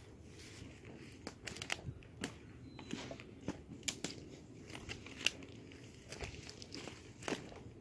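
Irregular rustling and crackling of leaves and twigs as undergrowth is brushed or stepped through, with sharp snaps scattered unevenly, the loudest a little after the middle.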